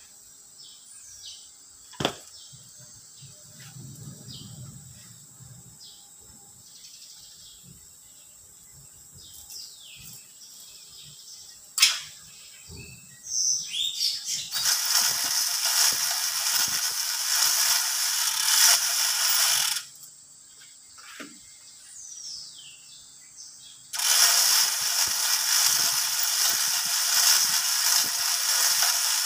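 Manual chain hoist worked by its hand chain, the chain rattling and clattering through the block with a ratcheting sound. It runs in two long spells, one of about five seconds near the middle and another through the last five seconds. Before that there are a few sharp knocks, the loudest about twelve seconds in, and birds chirp faintly.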